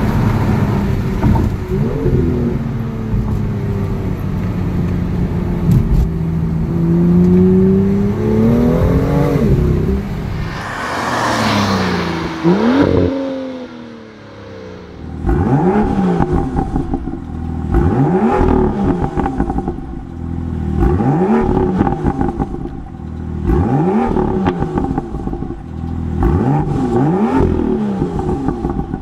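BMW M2's turbocharged 3.0-litre straight-six engine revving, its pitch climbing and falling. In the second half it is revved up and drops back again and again, about every one to two seconds.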